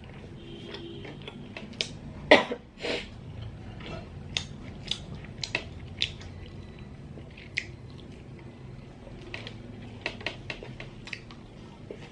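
Close-miked eating of small garlic-butter sea snails (ốc cà na): sharp clicks of the shells being picked up and handled, with sucking and chewing between them.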